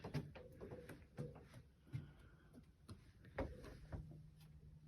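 Faint, irregular light clicks and knocks, a few a second, over a low steady hum.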